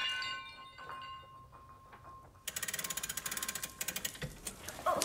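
Ringing tones fading away after a crash, then about two and a half seconds in a clock mechanism whirring with a rapid, even run of ratchet-like clicks, the knocked clock being jolted back into working.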